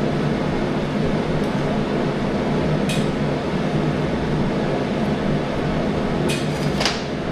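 Steady fan-like machine hum, with a light clink about three seconds in and two more near the end, like metal pieces being handled.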